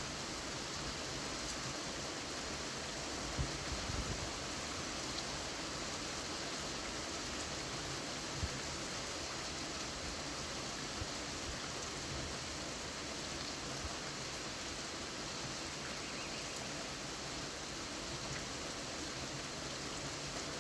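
Heavy rain falling, a steady even hiss, with a few faint low thumps.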